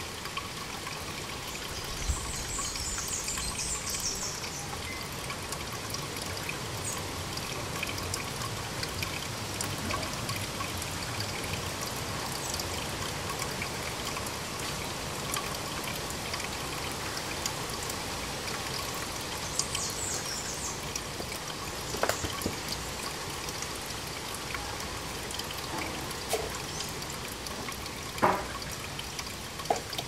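Washing machine drain water pouring steadily from the drain hose into a laundry sink, with a couple of sharp knocks near the end.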